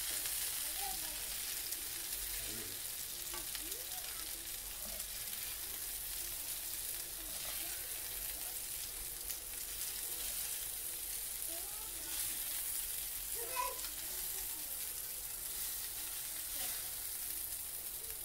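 Pieces of spiced lamb sizzling steadily in oil on a hot grill, with a few light taps and scrapes of a utensil moving the meat.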